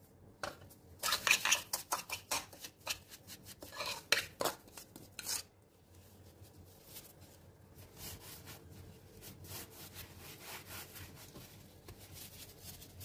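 Metal spoon stirring and scraping sesame seeds around a wooden bowl, a quick run of clicks and scrapes for about five seconds. After that comes a quieter rustle as a ring of dough is rolled through loose sesame seeds on a granite countertop.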